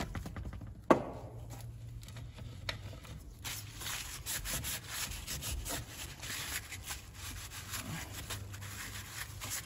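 Paper towel rubbing and wiping over the metal adjustment lever and plastic housing of a Chevrolet Corsa Classic side mirror's manual control, cleaning off freshly sprayed WD-40. There is a single sharp knock about a second in.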